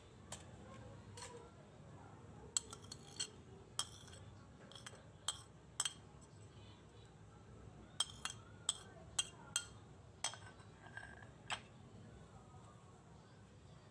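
A metal spoon clinking and tapping against ceramic plates, scraping chopped onion off a small plate: a string of sharp, separate clicks in two runs, the second starting about eight seconds in.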